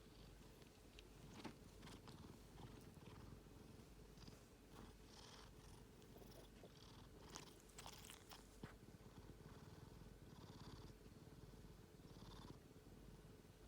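A pet snoring faintly: soft, slow breaths every second or two over a low rumble, with a few faint clicks.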